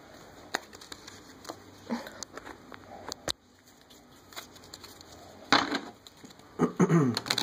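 A deck of playing cards being shuffled by hand: scattered light snaps and flicks of the cards, then a rapid flurry of card clicks near the end.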